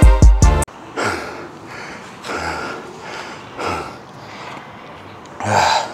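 Background music with a drum beat cuts off abruptly less than a second in, then a man breathes heavily, a deep breath roughly every second, the loudest near the end. It is hard breathing while recovering from exhaustion after intense exercise.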